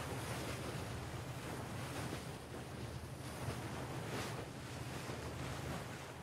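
Sea water rushing along a ship's hull, with wind, swelling and easing, over a steady low rumble.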